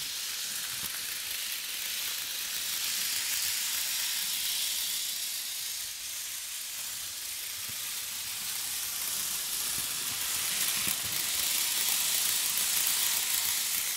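Bachmann N scale Santa Fe 4-8-4 Northern steam locomotive and its freight cars running around the track, a steady high hiss-like whir that swells and fades in loudness.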